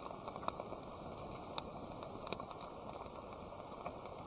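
Food crackling as it roasts over a flame, with scattered sharp pops over a steady low rushing hiss.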